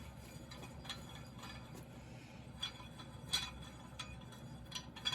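Light, scattered metal clicks and clinks, about five in all, of hand tools and chainsaw engine parts being handled as the saw is taken apart.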